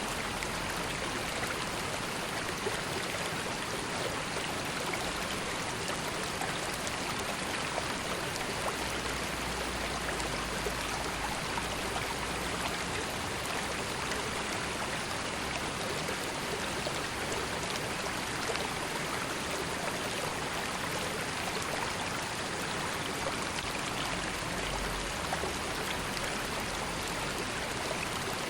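River water flowing, a steady, even rush and babble.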